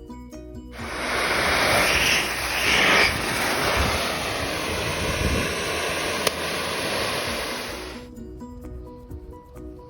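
Angle grinder grinding the steel of a sledgehammer head, a harsh noise that starts about a second in and cuts off after about seven seconds, with background music underneath.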